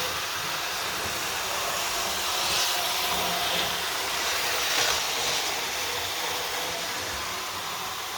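A Tri-ang Blue Pullman model train running on the track, its motor and wheels making a steady hissing whirr that grows louder about three to five seconds in, then eases off.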